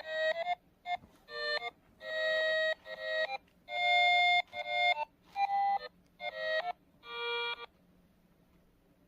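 Electronic alarm-clock melody: a tune of beeping notes, some in quick runs and some held about half a second. It cuts off abruptly about a second and a half before the end.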